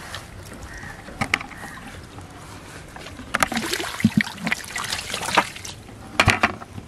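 Water splashing out of a tipped plastic bucket onto grass as fish are poured out, the loudest stretch a few seconds in. Sharp knocks from the bucket being handled come shortly before and near the end.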